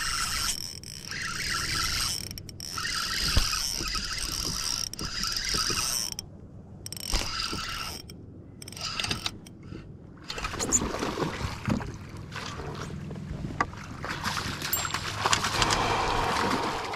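Fishing reel cranked in spurts, a whirring of its gears with short pauses, while a fish is played on the rod; in the second half, water splashing and sloshing as the fish is brought to the landing net.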